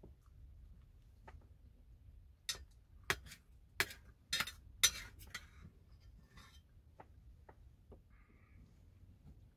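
Metal cutlery clinking and scraping against a plate while eating: a quick run of sharp clinks starting about two and a half seconds in and lasting about three seconds, then a few fainter taps.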